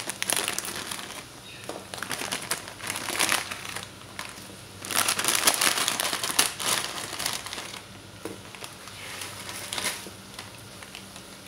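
Plastic Koka instant-noodle packet crinkling and crackling in several bursts, the longest about halfway through, as the dry noodle block is shaken and broken out of it into the pan.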